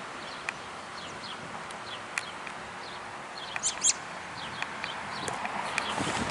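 Birds chirping in short, scattered calls over a steady rush of wind, with a louder cluster of chirps a little past the middle.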